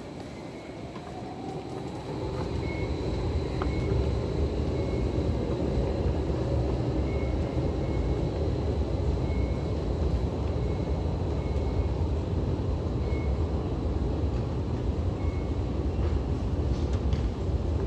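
Underground metro station rumble: a steady low rumble, typical of an MRT train on the platform below, that swells over the first few seconds, with a faint rising whine near the start and a faint short beep repeating every second or two.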